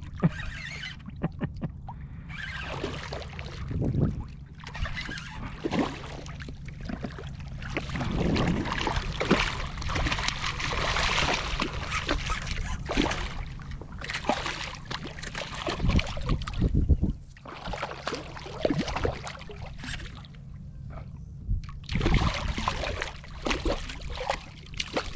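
A hooked redfish thrashing at the surface beside a kayak: irregular splashing and water sloshing, heaviest in the middle.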